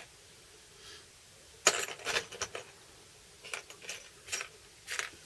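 Small metal parts clinking and rattling as they are handled: a burst of clicks about two seconds in, then a few lighter ticks.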